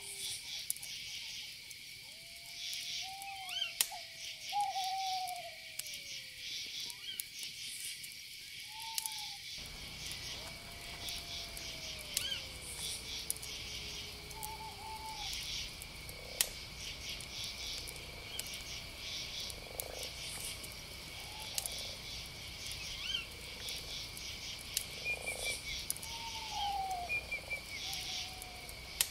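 Night chorus of frogs and insects: a steady high trill with pulsing calls above it, and now and then lower calls that slide down in pitch. From about ten seconds in a low, even rumble joins underneath.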